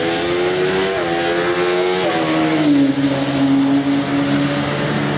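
Saloon race car engine accelerating hard, its pitch climbing and dropping sharply with quick upshifts about one and two seconds in, then holding a steady note.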